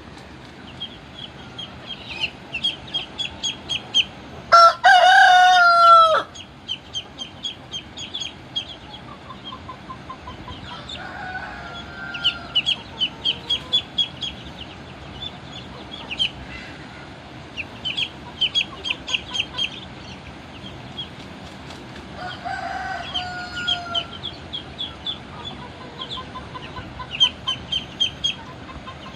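Game-fowl roosters crowing: one loud, close crow about four to six seconds in, then two fainter crows around eleven and twenty-two seconds in. Bursts of rapid, high-pitched chirping repeat throughout.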